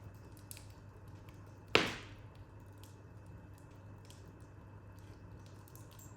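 Wood fire crackling in a corner fireplace: scattered faint ticks and snaps, with one sharp loud pop from the burning wood a little under two seconds in.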